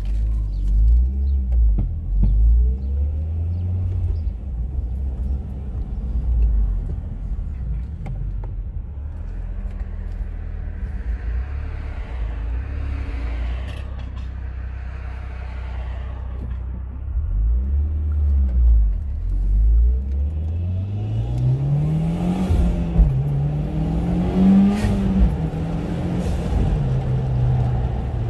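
Turbocharged 2.0-litre four-cylinder engine of a 2015 Mitsubishi Lancer Evolution X GSR, running on a test drive to compare intake sound. It runs at low revs for most of the time, then the revs climb steadily under acceleration about two-thirds of the way in, dip briefly a couple of times, and settle back down near the end.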